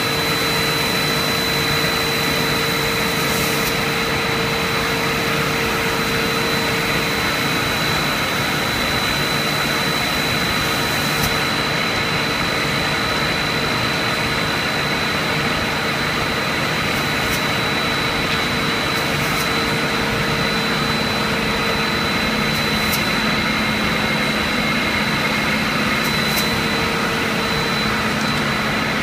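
HDPE raffia tape stretching plant running: a loud, steady machinery drone with a constant high-pitched whine and a lower hum, and a few faint ticks.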